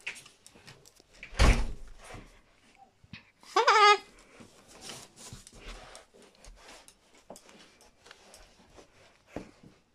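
White cockatoo brushing and bumping against the microphone at close range, with a rustle of feathers and scattered light clicks and knocks. A loud thump comes about a second and a half in, and a short wavering call about three and a half seconds in.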